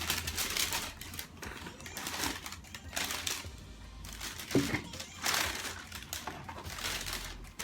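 Cardboard shoebox being opened and handled: a run of short rustling, scraping noises, about six in all, over background music.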